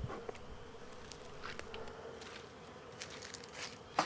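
Honeybee colony buzzing in a steady hum around the opened hive, the bees stirred up after the cover came off. Faint clicks sound throughout, and a sharp knock comes near the end.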